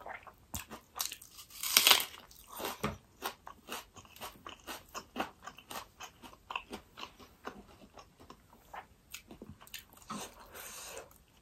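Close-miked chewing of a mouthful eaten by hand: a run of short wet mouth clicks and crunches, with a louder crunchy bite about two seconds in.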